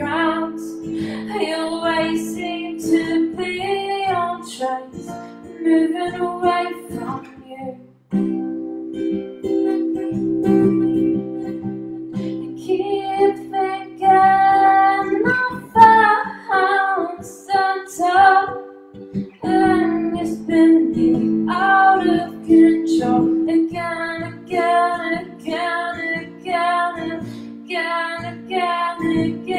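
A woman singing while playing an acoustic guitar, a slow song with sustained notes and melismatic vocal lines; the sound drops out briefly about eight seconds in before voice and guitar resume.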